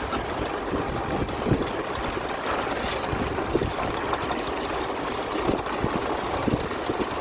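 A small vehicle's engine running steadily as it drives, with frequent short knocks and rattles.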